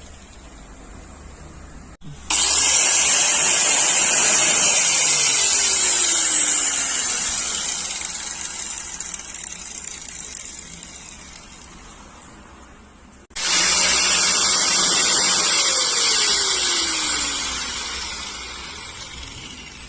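Drill fitted with a grinder attachment, run twice. Each run starts suddenly with a loud, hissing grind, then fades over several seconds as a faint whine falls in pitch, the tool winding down.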